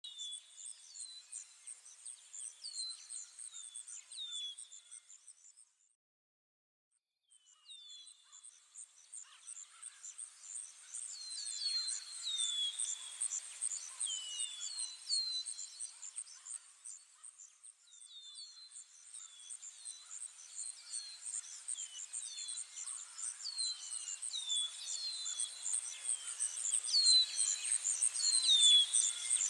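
Birds chirping, with many short repeated calls, over a constant high-pitched insect chirring. The sound drops out completely for about a second and a half near six seconds in, then resumes and grows louder toward the end.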